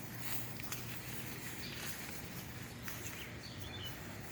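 Quiet outdoor ambience: a steady low hiss with faint bird chirps, one near the end.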